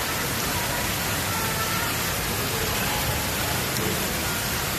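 Steady rush of water pouring from a mushroom-shaped pool fountain and splashing into the pool.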